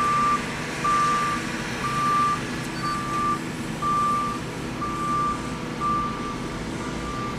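Backup alarm beeping steadily, about once a second, each beep half a second long, over the steady running of a Cat 330BL excavator's diesel engine as it works.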